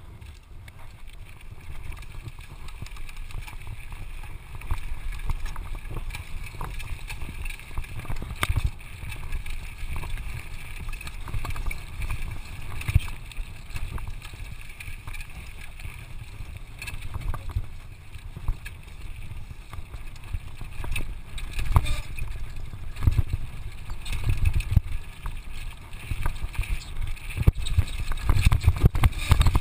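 Downhill mountain bike riding over gravel and packed dirt: tyres rumbling and crunching on loose rock, the bike rattling with sharp knocks over bumps, and wind buffeting the camera microphone. It grows louder and rougher near the end as the trail gets bumpier.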